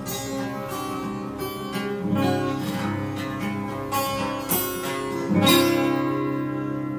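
Solo acoustic guitar playing the intro to a blues song, picked notes and strummed chords. A hard strum a little past five seconds in rings on.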